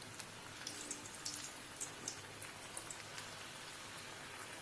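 Chicken-and-cheese stuffed bread rolls deep-frying in hot oil: a steady sizzle dotted with many small crackles and pops.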